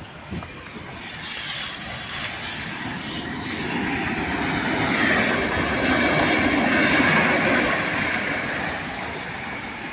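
Freight train rumbling along the track: a rough, steady noise that swells to its loudest about six or seven seconds in and then eases off.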